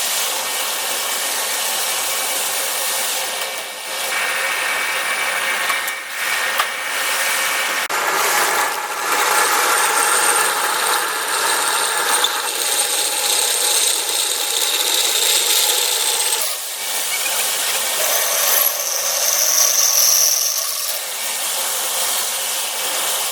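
Electric drill running and boring a hole with a freshly resharpened twist drill bit, its sound changing several times as the load varies.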